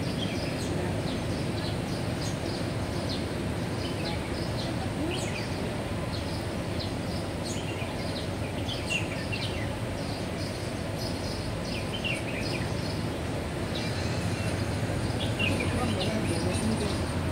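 Steady outdoor city background noise with a low hum, and small birds chirping in short high calls on and off.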